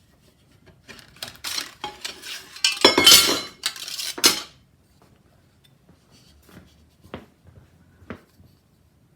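Thin sheet metal and hand tools clattering and clinking as the metal is handled and worked. A busy stretch of rattling clanks lasts about three seconds, loudest in the middle, and two single sharp clicks follow.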